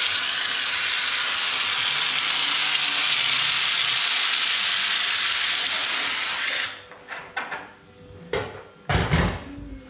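Compressed-air spray gun hissing steadily as it sprays rust-proofing treatment through a long extension wand. The spray cuts off suddenly about two-thirds of the way through, followed by a few light knocks.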